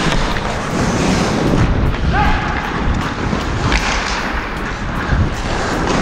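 Ice hockey play heard up close through an action camera's microphone: a steady rush of wind noise over the mic, with skate blades scraping the ice and a series of sharp knocks from sticks and puck.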